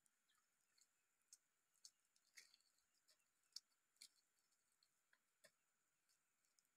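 Faint, scattered clicks and crackles of shells being cracked and peeled off eggs by hand, about a dozen over the few seconds, the sharpest about three and a half seconds in.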